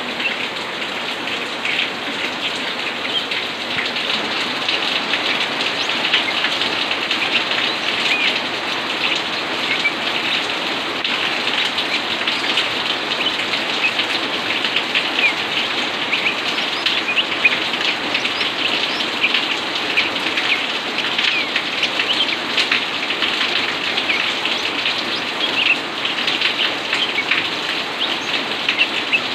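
Steady rain falling on a roof and running off the eaves in a dense, even patter.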